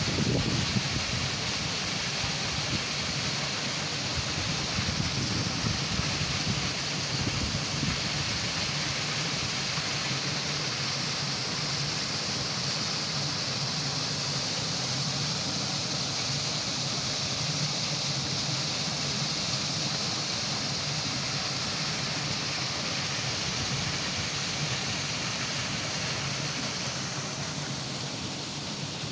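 Small garden waterfall and rocky cascade: a steady rush of falling, splashing water that eases slightly near the end.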